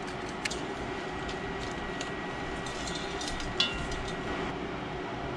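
Chopped carrots, peas and mushrooms sizzling steadily in an enamelled cast-iron pot, with a few light clicks as peas drop in and a silicone spatula stirs.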